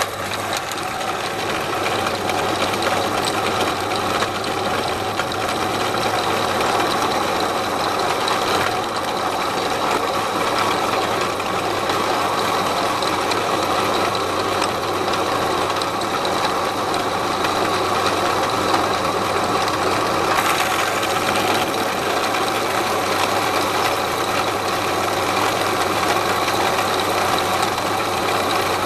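Drill press running steadily, its bit drilling into a steel part clamped in a vise.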